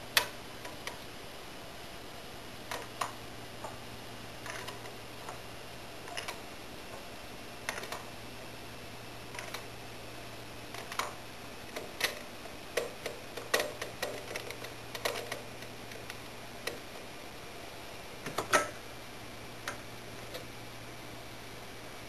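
Rotor parts and plastic buckets being handled and seated in a Hettich Rotofix 32A centrifuge: irregular clicks and clinks, busiest in the middle, with a heavier knock about three quarters of the way through, over a faint steady hum.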